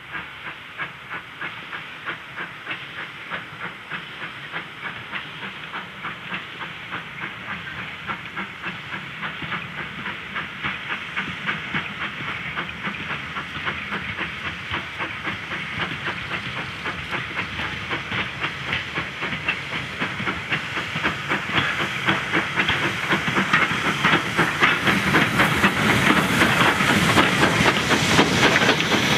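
Caledonian Railway 0-6-0 steam locomotive No.828 working a train, its exhaust chuffing in an even rhythm that grows steadily louder as it draws near.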